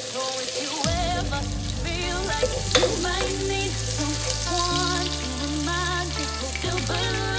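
Chopped onion and garlic sizzling in hot oil in a pot, stirred with a wooden spoon, under background music with a steady bass line.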